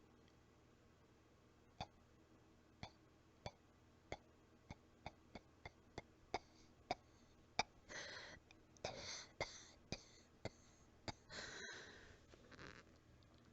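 Soft, weak coughing: short single coughs coming closer and closer together, then from about two-thirds of the way in, longer breathy coughing bursts, a little out of breath.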